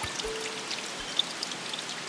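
Running water with many small drips and splashes, a field recording of forest water, joined by a brief soft low tone about a quarter of a second in.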